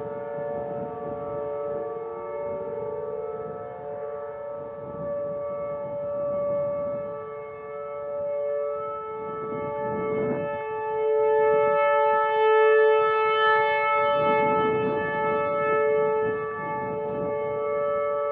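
Outdoor warning sirens sounding a steady tone during a siren test, led by a Whelen Vortex; the tone swells and fades in loudness. About a second in, a lower siren pitch falls away.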